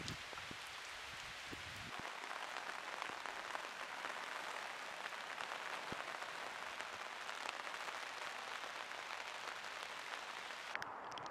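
Steady rain falling on wet ground and puddles: an even hiss dotted with small drop ticks, going duller near the end.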